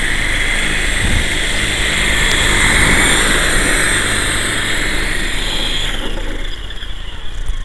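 GT Model QS8006 electric coaxial RC helicopter, its motors and twin rotors running with a steady high whine. The whine swells about three seconds in and fades after about six seconds.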